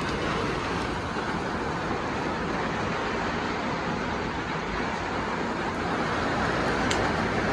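A steady, even rushing noise with no distinct events, and one faint click about seven seconds in.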